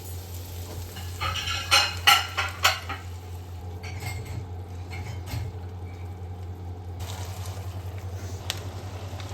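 Cooking utensil clinking and scraping against a pan while stirring. A run of sharp clinks comes between about one and three seconds in, then lighter taps, over a steady low hum.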